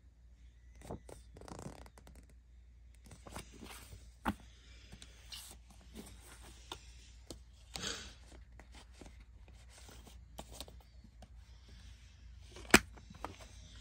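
A paper CD booklet and a plastic CD jewel case being handled: scattered rustling and light plastic clicks and taps, with one sharp plastic snap near the end as the case is shut.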